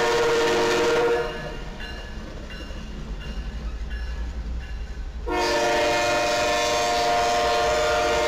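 Diesel locomotive's multi-chime air horn sounding two long blasts: the first cuts off about a second in, the second starts about five seconds in and holds to the end. Between the blasts the passing train's rumble and wheel noise carry on.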